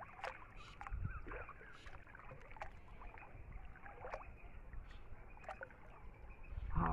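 Water sloshing and dripping around a person wading waist-deep while hauling a gill net up out of the water, with short splashes now and then.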